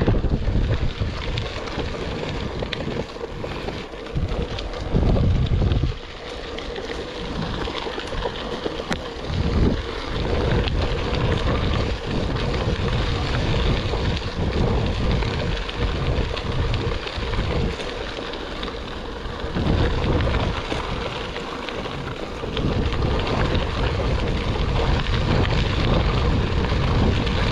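Wind buffeting the action-camera microphone in uneven gusts over steady tyre rumble from riding along a sandy forest dirt track.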